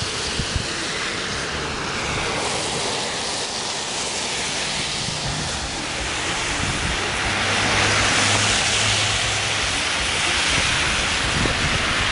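Steady rushing noise of wind and traffic on a street in a snowstorm, swelling to its loudest about eight seconds in and easing off after.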